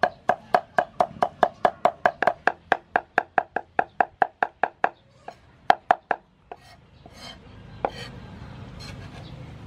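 Cleaver chopping dried sweet peppers into a fine mash on a round wooden chopping block, in rapid even strikes about four a second, each with a short ring. The chopping stops about five seconds in, with two more strikes after it and then only soft scattered taps.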